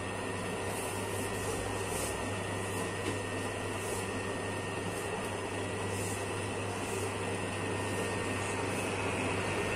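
Electric dough mixer running steadily, its motor humming as the mixing arm kneads a large batch of bread dough in a steel bowl, with a faint swish about once a second.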